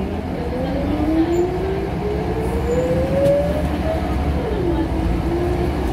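Scania L94UB single-deck bus heard from inside the saloon while pulling away, over a steady low engine rumble. A rising drivetrain whine climbs for a few seconds, drops sharply about four and a half seconds in at a gear change, then climbs again.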